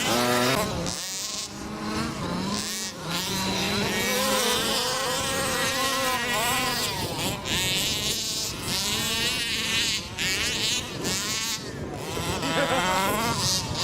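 Small, buzzy off-road vehicle engines revving up and down. Several engine notes rise and fall and overlap, so more than one vehicle is running.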